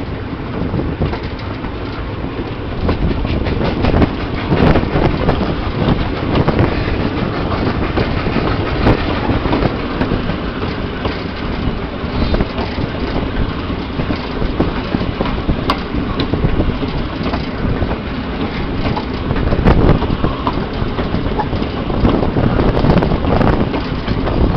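Wagons of a steam-hauled mixed goods train running along the track: a steady rumble of wheels on rail, with frequent clicks and rattles from the wagons.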